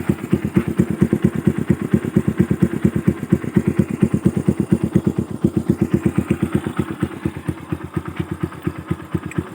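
Carburettor Yamaha Byson's single-cylinder four-stroke engine idling through an SC Project aftermarket exhaust fitted with a dB killer baffle, a steady even putter of about eight exhaust pulses a second.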